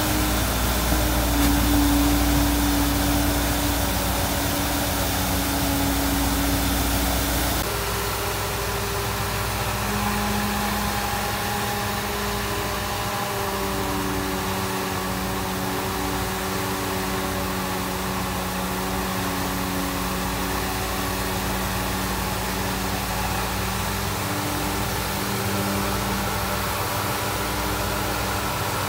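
Diesel engines of a Caterpillar excavator and sand pump running steadily, over a hiss of sand-laden water gushing from a pipe onto a screen. The sound changes abruptly about eight seconds in, with different engine tones after.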